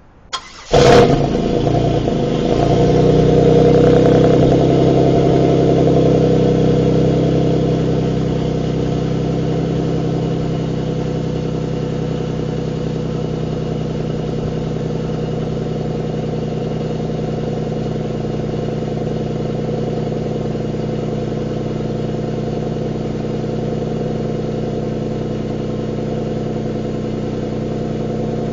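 Exhaust of a 2003 Pontiac Bonneville SSEi's supercharged 3.8-litre V6: the engine is started, catches about a second in, runs a little faster and louder for the next several seconds, then settles into a steady idle.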